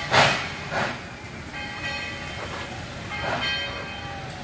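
A 1943 Baldwin coal-fired steam locomotive working slowly, its exhaust chuffing out in short hissing bursts, several in a few seconds. The loudest burst comes just after the start.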